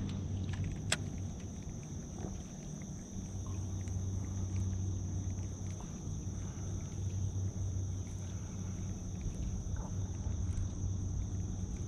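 A steady high-pitched insect drone over a low steady hum, with one sharp click about a second in.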